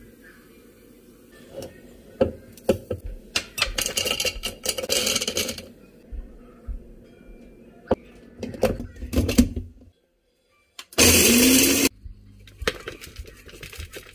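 Knocks and clatter of kitchen utensils and containers, then, about three-quarters through, a one-second burst of a small personal blender motor spinning up as it grinds almonds with sugar.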